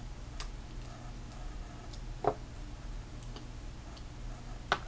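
A few short, sharp clicks and taps a couple of seconds apart, the last the loudest, from makeup containers being handled on a table, over a steady low hum.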